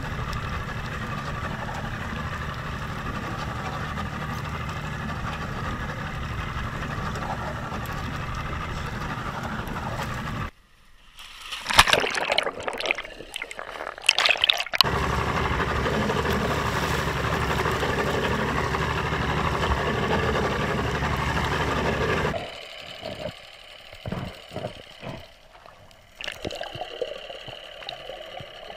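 A steady rumble for about ten seconds, then splashing and water bubbling and gurgling as a snorkeler's camera goes underwater, with scattered short bubbling bursts near the end.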